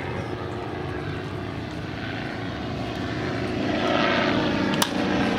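A propeller airplane's engine drone overhead, growing louder from about three and a half seconds in. Near the end, one sharp pop as the pitch reaches home plate.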